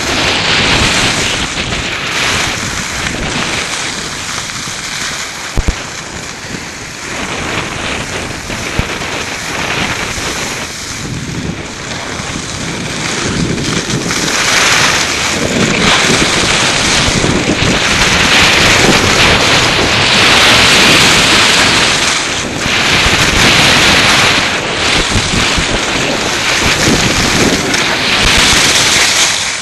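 Wind buffeting a helmet-mounted camera's microphone while riding, mixed with a snowboard scraping and hissing over the snow. It gets louder from about halfway through, with a couple of brief knocks early on.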